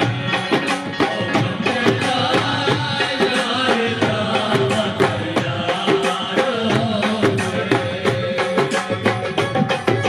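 Live Punjabi tappa folk music: a dhol drum beating a steady, rapid rhythm under men singing.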